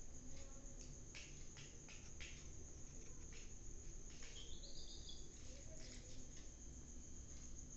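Faint rustling and small clicks from handling on a lap, under a steady high-pitched trill. About four and a half seconds in, a chick gives one high peep that rises and then holds.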